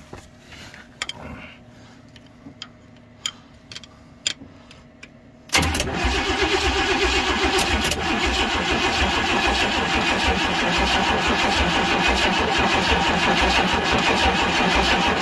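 A few light clicks and knocks of handling, then about five seconds in the starter suddenly begins cranking the old plow truck's engine, turning it over steadily with a fast even pulse. The engine does not catch.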